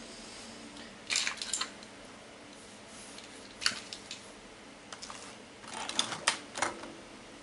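Small, scattered clicks and rustles of a cut-off component lead being bent into a wire shorting loop, in a few short clusters.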